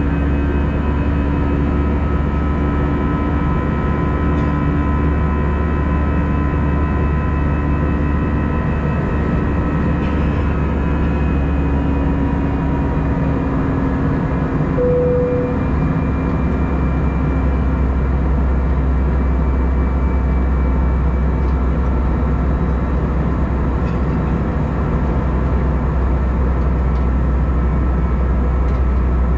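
Airbus A320 passenger-cabin noise in flight: the steady roar of the jet engines and airflow with a heavy low drone and several steady hum tones. A short single tone sounds about halfway through.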